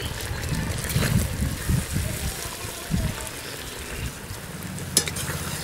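Sugar syrup bubbling in a steel karahi as candied ash-gourd pieces are scooped out with a steel slotted spoon and tipped onto a steel plate, syrup trickling off them. A sharp metal clink near the end.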